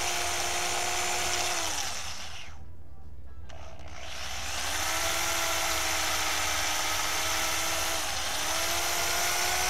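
Electric drill with a small bit drilling out a broken bolt in an engine's threaded hole. The motor runs steadily, winds down and stops about two seconds in, then spins back up after a short pause and runs on, slowing briefly late on.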